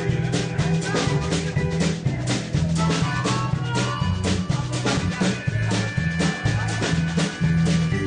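Instrumental blues played by a band: a drum kit keeps a steady beat of cymbal and drum hits over a moving bass line.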